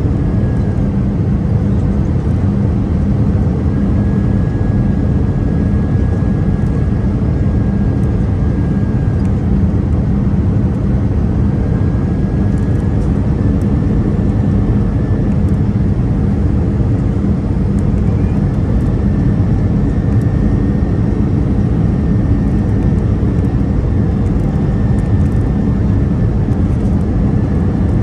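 Steady cabin roar of an Airbus A319 on final approach, heard from a seat beside the wing: CFM56 turbofans at approach thrust and rushing airflow, deep and even, with a faint high whine that comes and goes.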